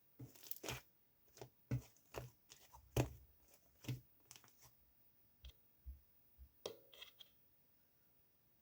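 Slime being handled and pressed by hand, making an irregular run of short clicks and crackles, the last a brief crackle about seven seconds in.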